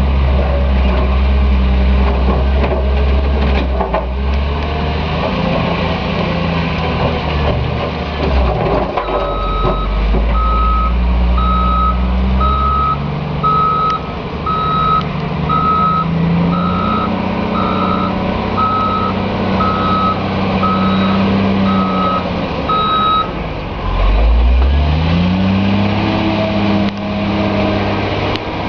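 Caterpillar 966H wheel loader's diesel engine working, its pitch going up and down with the throttle. From about nine seconds in, its reversing alarm beeps about once a second for some fourteen seconds. Near the end the engine revs up again.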